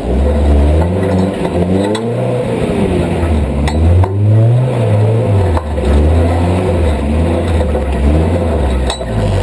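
Off-road vehicle engine revving up and down repeatedly under load while crawling over rock, with a few sharp knocks.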